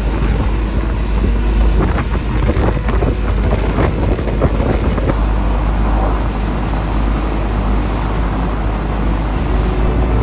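Steady motor-vehicle engine noise with a deep, constant rumble underneath.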